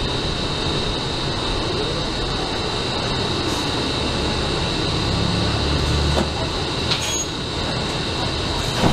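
Interior of a city transit bus under way: steady engine and road noise with a constant high whine. A deeper rumble swells about five seconds in, and a sharp knock comes near the end.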